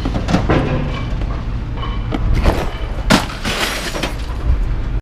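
Pieces of scrap metal being thrown onto a pile, clattering and crashing several times, the loudest crash about three seconds in, over a steady low rumble.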